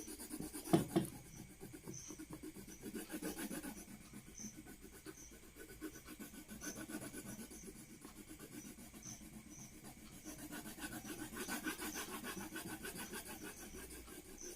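Pencil shading back and forth on paper: a steady run of rapid scratchy strokes, with a single thump about a second in.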